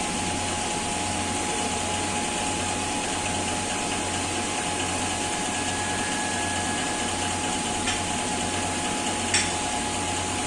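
Electric hydraulic pump of a scissor car lift running with a steady hum as it raises a car, with a couple of light clicks near the end.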